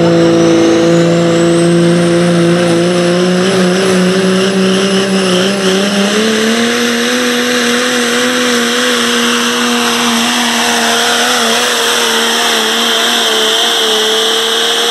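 Turbocharged Cummins diesel in a Pro Stock Diesel pickup running flat out while pulling the sled. A high turbo whistle climbs over the first few seconds, and the engine's pitch steps up about six seconds in as it holds a steady high note. The sound cuts off suddenly at the end.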